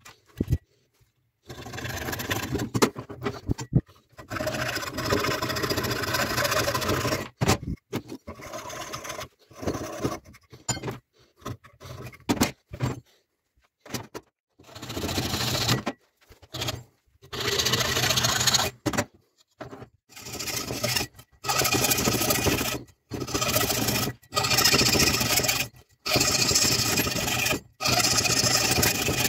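Hand hacksaw sawing through a block of wood held in a bench vise, heard as spells of scraping strokes that break off abruptly between them.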